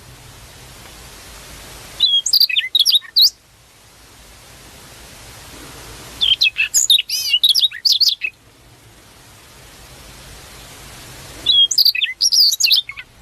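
A berkecet songbird singing three bursts of quick, high, twittering phrases, each a second or two long and a few seconds apart, over a faint steady hiss.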